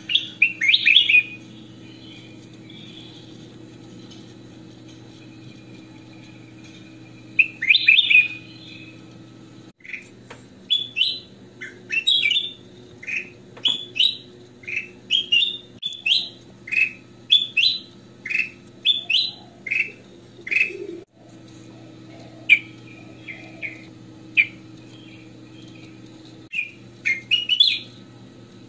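Ruby-throated bulbul (kutilang emas) singing in its cage: bursts of chattering song, and in the middle a long run of quick, clear whistled notes at about two a second, over a steady low hum.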